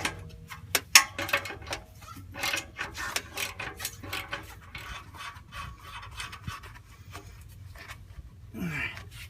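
Hand tools working a steel exhaust clamp bolt: a run of irregular metal clicks and scrapes, like a socket wrench being worked.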